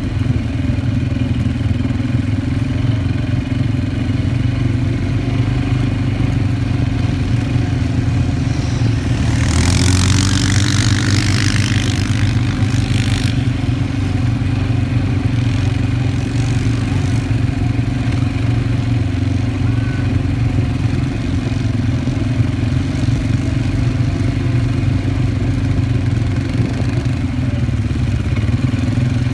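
Quad bike (ATV) engine running steadily under way on sand. A burst of hiss comes in about ten seconds in and lasts a few seconds.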